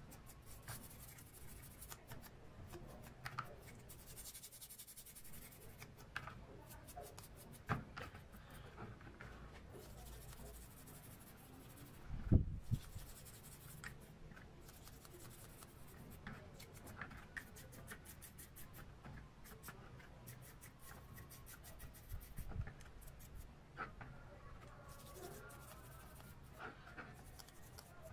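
A small geared steel shaft from a Hasler Bern railway speedometer being scraped and scrubbed clean by hand with a pointed tool, in runs of fine scratching strokes and small clicks. A sharp knock about twelve seconds in, with a smaller one near eight seconds, as the part or tool meets the metal tray.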